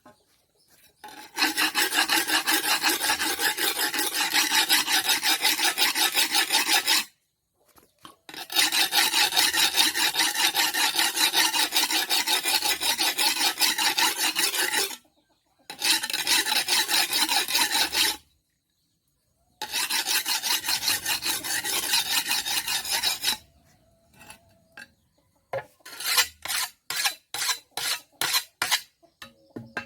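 A metal file rasping against a tool's blade, as in sharpening a farm hand tool: four long bouts of quick back-and-forth strokes with short pauses between them, then a handful of slower single strokes near the end.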